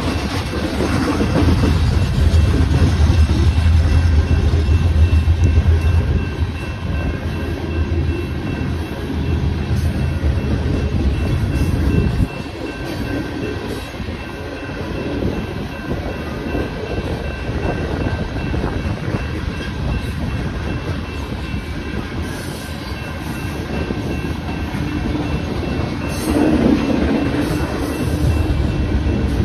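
Loaded coal gondola cars rolling through a grade crossing, wheels clacking over the rails with a low rumble that drops suddenly about twelve seconds in and swells again near the end. The crossing's electronic warning bells ring steadily throughout.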